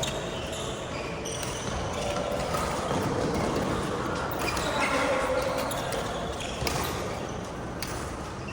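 Badminton rally: rackets striking the shuttlecock in several sharp, irregularly spaced hits.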